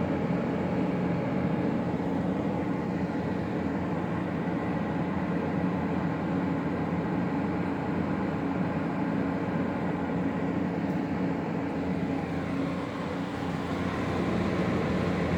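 Brand-new LG 12,000 BTU window air conditioner running and cooling: a steady hum with several low steady tones over an even whoosh of air.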